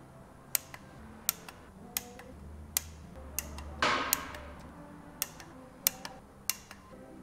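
Hand ratchet on a long extension tightening intake manifold bolts on a Chevy 8.1 big block: sharp single clicks roughly every three-quarters of a second, with a louder rasping run of clicks about four seconds in.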